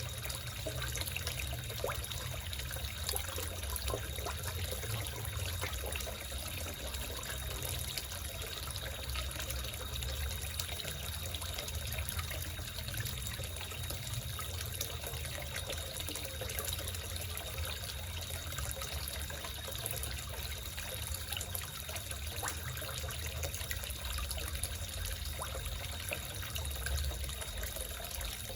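Water trickling steadily into a small koi pond, with a low rumble underneath and a faint steady high tone.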